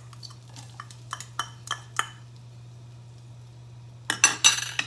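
A metal spoon ticks about eight times against a cast iron skillet as minced garlic is knocked into melted butter. Near the end there is a short, loud clatter of utensils.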